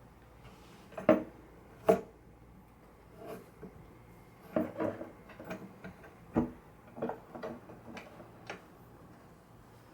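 Irregular wooden knocks and clicks as the archtop guitar's neck and its spring mount are handled and fitted into the body. Some knocks carry a short pitched ring.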